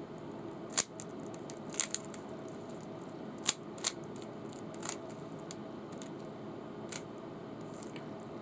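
Rubik's cube layers being twisted by hand: irregular sharp plastic clicks, roughly one a second, over a steady background hum.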